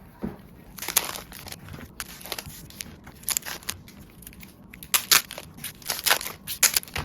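Plastic packaging crinkling and tearing as sealed mini photocard packs are opened by hand: irregular crackles, thickest about five to seven seconds in.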